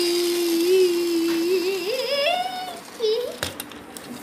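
A voice humming one held note, then sliding up in pitch, followed by a short rising note.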